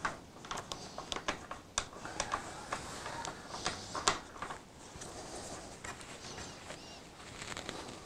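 Light, irregular clicks and ticks of an aluminium fork top cap being threaded by hand onto a Yamaha MT-07's front fork tube. The clicks are busiest in the first half and grow sparser and fainter later.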